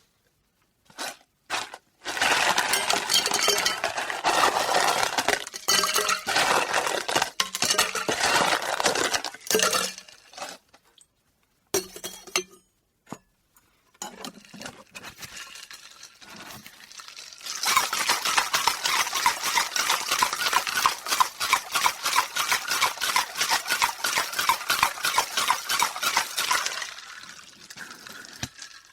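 Ice cubes dropping and clinking into a drinking glass: a couple of single clinks, then a long rattling run of many clinks, a few more single clinks, and a second long rattling run that tails off near the end.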